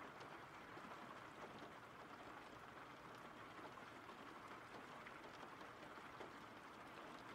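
Faint steady rain, an even patter of drops with no other sound over it.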